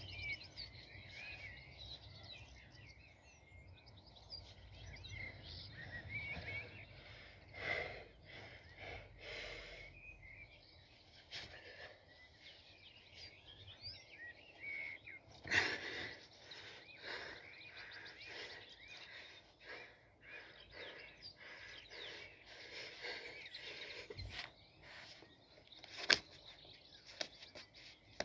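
Faint birdsong outdoors, many small chirps throughout. A few short, sharp puffs of breath come from a man straining to lift a heavy stone.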